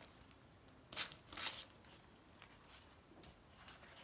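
Rustling of a plastic silk-screen transfer sheet and its paper backing being handled, with two sharp crinkles about a second in and a few faint ticks after.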